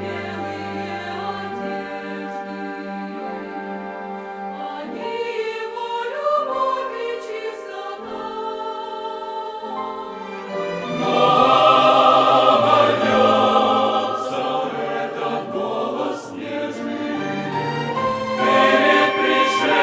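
Church choir and chamber orchestra performing a hymn. A quieter passage of sustained notes grows louder and fuller about halfway through.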